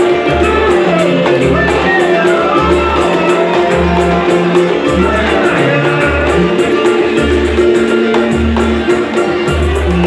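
Live samba played by a small group: plucked banjo, cavaquinho and guitars strumming over a deep drum beat about once a second, with a man singing into a microphone.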